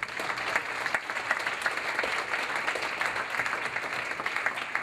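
Audience applauding: a dense, steady patter of many hands clapping that dies away at the very end.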